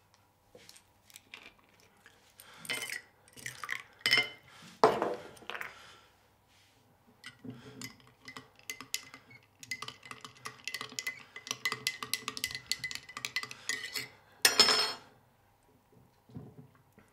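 A spoon stirring in a drinking glass, a fast run of light clinks against the glass for about four seconds, ending in one louder clatter. Before it, a glass and a small bottle are handled on a table with scattered knocks and clinks.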